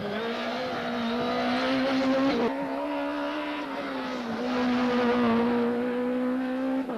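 Rally car engine running at high revs on a stage, one strong steady note that steps in pitch a few times, as at gear changes or lifting off.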